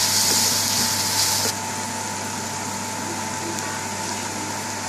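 Sliced onions sizzling in hot vegetable oil in a frying pan, the loud hiss cutting off suddenly about one and a half seconds in. A steady hum with a thin whine carries on underneath throughout.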